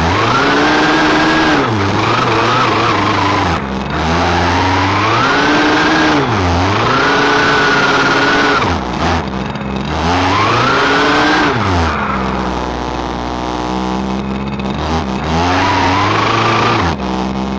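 Small petrol engine of an RC buggy, heard close up from a camera mounted on the car, revving up and falling back again and again as it drives, about five times, with a lower, steadier stretch a little past the middle.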